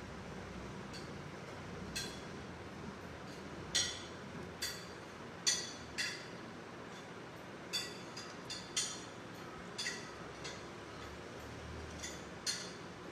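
About a dozen light, sharp clinks at irregular intervals over a faint steady background hiss, while a hand sprinkles pistachio slivers over a cream cake.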